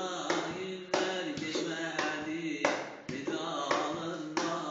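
A man singing, accompanying himself by slapping his hands on a plastic stool used as a drum, in a steady beat of roughly one to two strikes a second.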